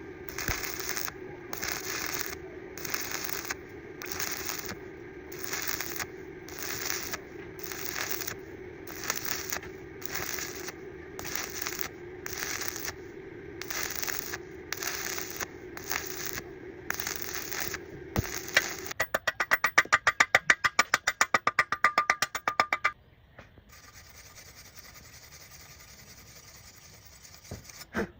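Rhythmic scraping strokes, about one and a half a second, over a steady low hum; near the end they give way to a few seconds of rapid, loud clicking and then a faint steady hiss.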